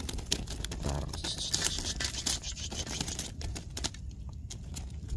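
Close handling noise: a run of small clicks, scrapes and crinkles as hands work at the fishing line and gear.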